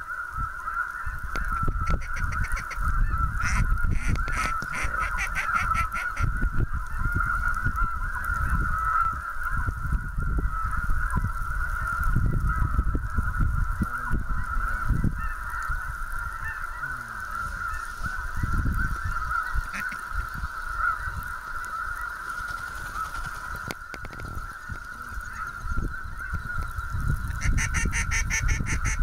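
A large flock of geese calling: a dense, continuous chorus of high honking yelps that never lets up.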